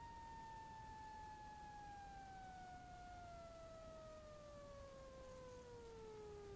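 Faint electrical whine from the Cessna 150's engine, alternator whine picked up by the intercom, gliding slowly and steadily down in pitch as engine speed falls with the power off.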